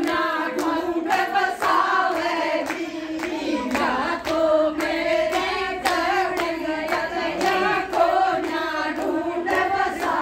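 Group of women singing a Haryanvi devotional song to Lord Shiva together, with hand clapping keeping a steady beat at about two claps a second.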